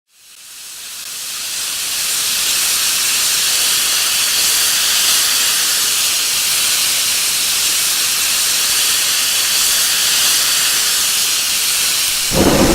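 Steady hiss of escaping gas, fading in over about two seconds and then holding evenly. Just before the end a deeper, louder rushing sound cuts in.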